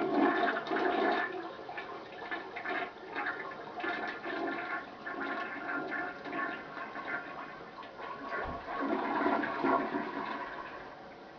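Toilet flushing: a rush of water with uneven gurgling swells, loudest at the start and gradually dying away near the end.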